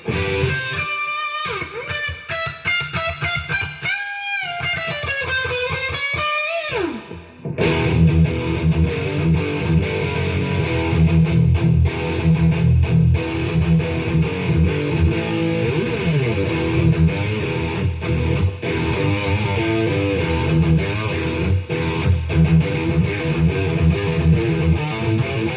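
Electric guitar music: a lead line of held notes with string bends and vibrato, then, about seven seconds in, a sudden change to louder, denser playing that carries on to the end.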